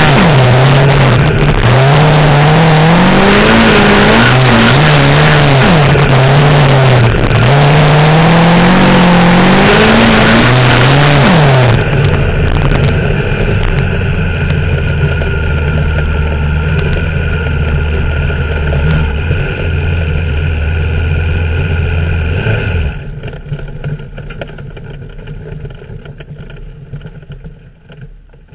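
Midget race car engine heard from the cockpit at racing speed, its pitch rising and falling as the car accelerates down the straights and lifts for the turns. About twelve seconds in it drops to a steady low note as the car slows. That note cuts off abruptly a little past twenty seconds, leaving quieter rattling that fades away.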